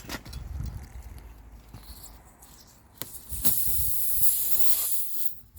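Air hissing out of a punctured car tyre for about two seconds as the nail is pulled from the tread, then cutting off, with a click just before it starts.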